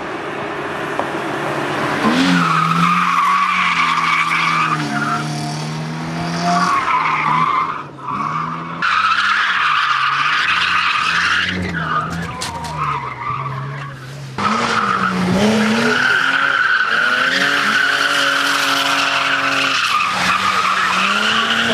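Car engines revving hard, the pitch climbing and dropping again and again through gear changes, with long tyre squeals as the cars slide around the cones.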